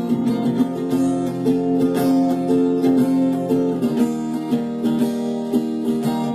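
Acoustic guitar strummed steadily, playing an instrumental passage of chords with no singing.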